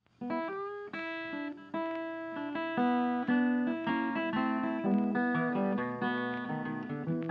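Acoustic guitar music, a run of plucked notes ringing over one another, starting just after the opening.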